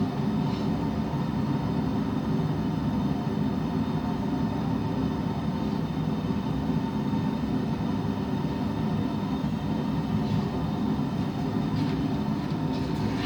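Forge running steadily: a continuous low rumble with a steady hum over it.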